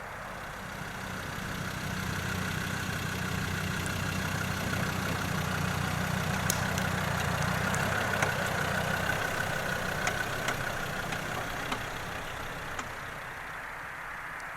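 An engine running, growing louder over several seconds and then fading, with a few light clicks over it.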